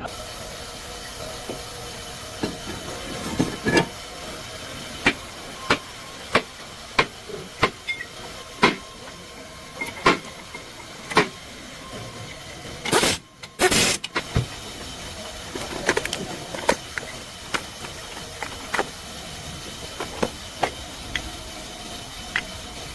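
Steady mechanical hum with many scattered sharp clicks and metal taps, and two short loud bursts of hiss about 13 seconds in.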